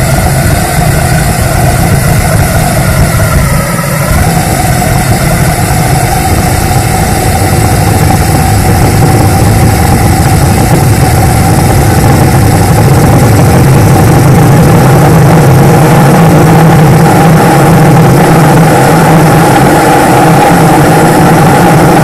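Small demonstration ramjet engine running steadily on a test stand: a loud continuous rushing burn with a whistling tone that rises slightly about four seconds in, getting a little louder in the second half.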